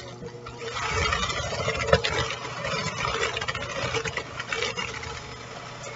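Electric hand mixer running, its beaters churning a butter, sugar and egg cookie batter in a bowl. It has a steady motor hum, and from about a second in it gets louder with a rough churning and many small knocks of the beaters, the sharpest about two seconds in.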